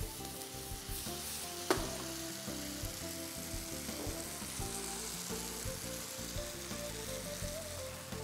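Chicken pieces in tomato masala sizzling in coconut oil in a frying pan on a gas stove, with stirring and one sharp knock against the pan about two seconds in.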